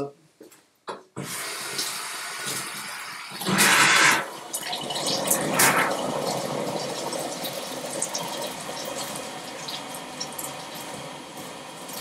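Hot water tap turned on about a second in and running steadily, with a louder rush of water about four seconds in and a shorter one a couple of seconds later.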